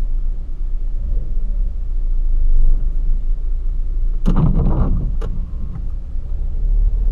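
Volkswagen Polo Sedan 1.6 heard from inside the cabin while driving off: a steady low rumble of engine and road. About four seconds in there is a short knock with a brief clatter.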